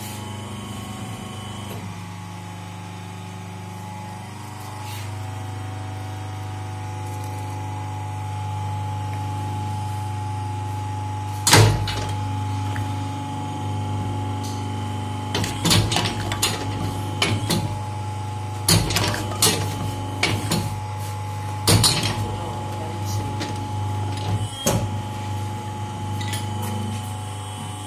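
Gallon-cap injection moulding machine running with a steady hum. One loud knock comes about twelve seconds in, and a run of sharp knocks and clacks follows in the later part.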